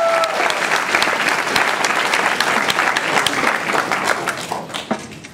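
Audience applauding, the clapping dying away near the end. A high, steady whistle sounds over the clapping for the first half second.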